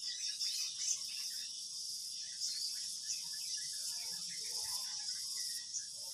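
A steady, high-pitched insect chorus like crickets, with many short chirps scattered through it.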